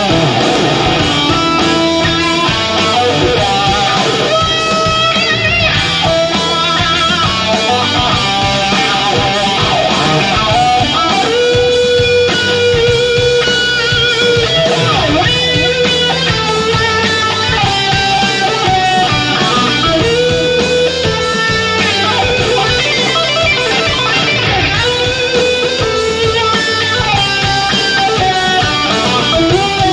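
Live instrumental rock: an electric guitar plays a lead melody of long held, bending notes over a heavy band backing.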